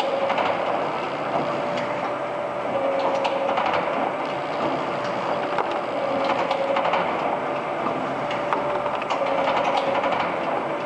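König Rex Automat dough divider and rounder running, dividing dough and rounding it into balls onto its conveyor: a steady mechanical clatter with light clicks and a hum that comes and goes every couple of seconds.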